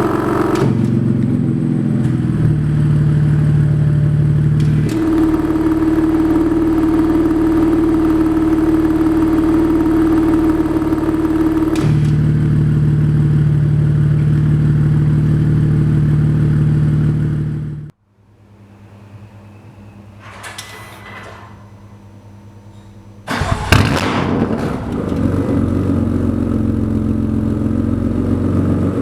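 BMW S55 twin-turbo inline-six running through an aftermarket exhaust at steady engine speeds, in clips that change abruptly. The engine is much quieter for about five seconds from about 18 s in, then loud again, with one sharp bang about 24 s in.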